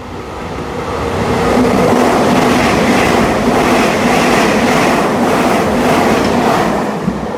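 Puyuma tilting express electric train (TEMU2000) running through the station at speed without stopping: a rush of wheels and air that swells over the first second or two, stays loud for about five seconds as the cars go by, and eases near the end.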